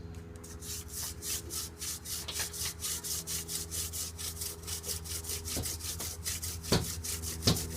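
Hand drill friction fire: a mullein stalk spindle rubbing as it is spun back and forth in the notch of an eastern white cedar hearth board, working up heat for an ember. It is a fast, even rhythm of rubbing strokes, with two sharper clicks near the end.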